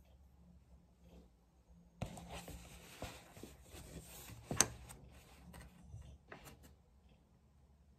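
Pages of a paperback book being riffled by hand: a papery fluttering rustle with many small snaps, starting about two seconds in and stopping near seven seconds, with one sharper snap in the middle.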